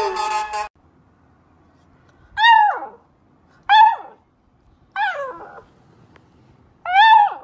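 A beagle puppy gives four short, high yelping calls, each dropping in pitch at its end, spaced a second or two apart. Less than a second in, another puppy's high howl is cut off.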